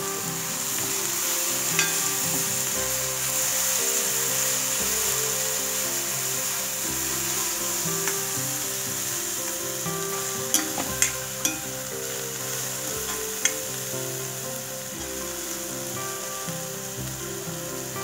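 Chopped taro stems, onion and dried red chillies sizzling in hot oil in a black kadai, stirred with a steel spatula. A few sharp clinks of the spatula against the pan come near the middle.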